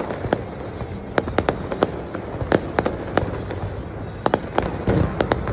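Fireworks going off: a rapid, irregular series of sharp bangs and cracks, several a second, over a steady background rumble.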